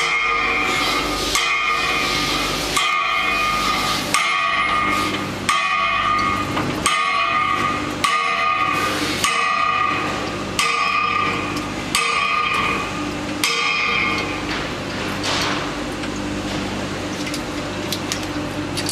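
Metal struck at an even pace, about one ringing clank every second and a half, over a steady machine hum; the strikes stop about three-quarters of the way through while the hum carries on.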